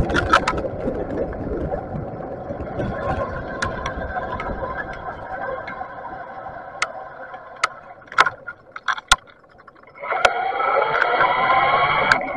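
Riding noise from an electric bike, picked up by an action camera in its housing: steady road and wind rumble, then a quieter moment with a few sharp clicks, then a whine that rises slightly in pitch over the last two seconds.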